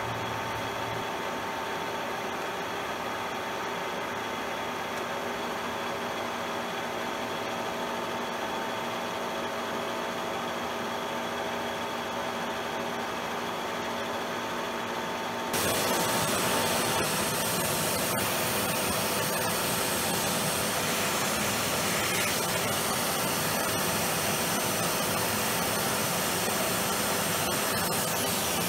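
Milling machine spindle running a dovetail cutter along a Myford Super 7 lathe saddle, a steady machine hum with a few fixed tones. About halfway through, a vacuum cleaner switches on, adding a louder, even hiss as its hose draws chips from the cut.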